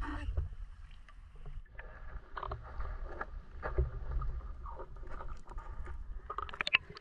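Water sloshing and splashing in irregular bursts over a low rumble, with a few sharp clicks near the end.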